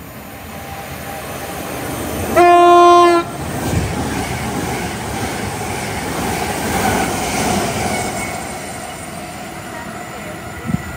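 A Great Western Railway Intercity Express Train sounds one short horn blast about two seconds in, a single steady note lasting under a second. It then passes at speed, its wheels and body rumbling and rushing louder as the carriages go by and fading away near the end.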